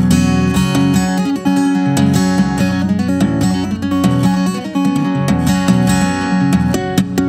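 Takamine steel-string acoustic guitar played with two-handed tapping on the fretboard: a quick run of tapped higher notes over sustained low notes.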